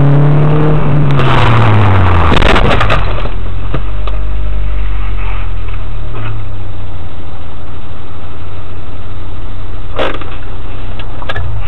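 Car engine winding down from high revs, its pitch falling over the first two seconds, with a harsh noisy burst and sharp knocks about one to three seconds in. It then runs on as a steady low drone with a few scattered clicks, a sharper one near the end.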